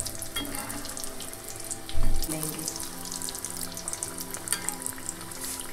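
Stuffed dal puris deep-frying in hot refined oil: a steady crackling sizzle, with a dull thump about two seconds in. Soft background music underneath.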